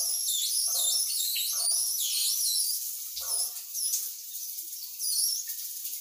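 Shower running: water spraying in a steady hiss, with quick high chirps gliding over it and a soft tap repeating about twice a second that stops about halfway through.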